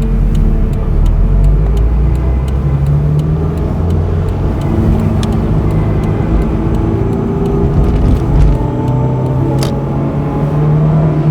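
Honda S2000's naturally aspirated 2.2-litre four-cylinder F22C1 engine running under way, its note climbing and dropping back several times as the car accelerates and eases off.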